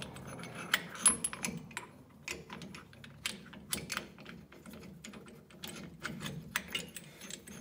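Irregular metallic clicks and clinks as a screw-type brake caliper piston compression tool is handled and set against a rear brake caliper, with a sharper clack about a second in.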